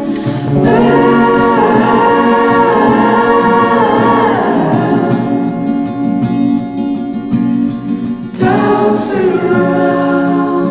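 Background music: a song with held, sung vocal notes over instrumental backing.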